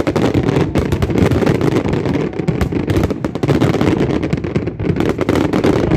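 Fireworks display: a dense, unbroken barrage of bangs and crackles over a constant rumble.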